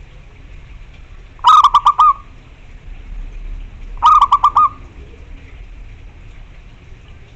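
Zebra dove (perkutut) cooing loudly: two short phrases of four or five quick, rolling notes, about two and a half seconds apart.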